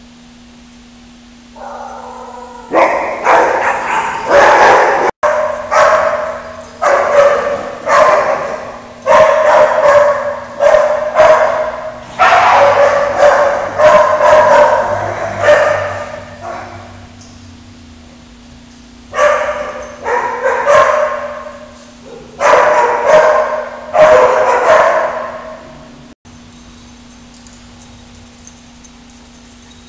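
A dog barking over and over in a long run of similar-pitched barks, each trailing off in the echo of a hard-walled room. There is a short lull about two-thirds of the way through, and the barking stops a few seconds before the end.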